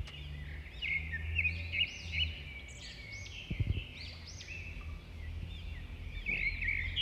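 Birds chirping and singing continuously in the background, many quick repeated notes over a low steady hum. A few soft knocks from a silicone spatula stirring diced carrots in a frying pan come a little past halfway.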